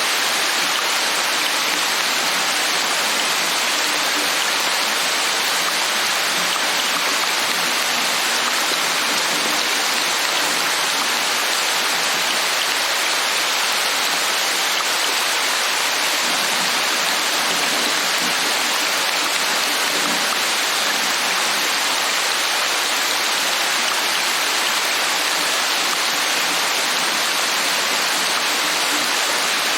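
Steady rain falling, an even, unbroken rush of water that does not let up.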